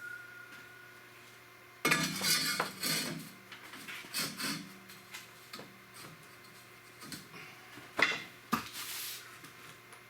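Metal tools and parts clanking and clinking as they are handled, with a burst of clatter about two seconds in and a few sharp knocks later, the loudest near the end.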